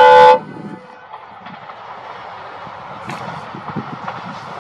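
A locomotive's horn sounding, cutting off about a third of a second in, then a passing train's wheels clattering over the rails with irregular clicks, growing louder near the end.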